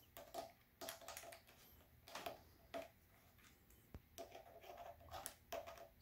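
Faint, scattered clicks and small rattles of a folding metal Torx key set being handled, its key turned out and fitted into a screw head.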